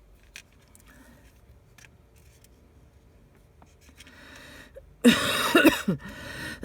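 A person coughing loudly, starting about five seconds in, after a few faint clicks of small tools on phone parts.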